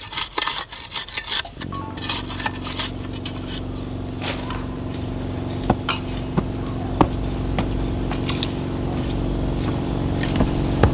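A metal hoe blade scraping and chopping into packed soil and grit: a quick run of strokes at the start, then scattered single knocks. A steady low hum comes in about a second and a half in and carries on under them.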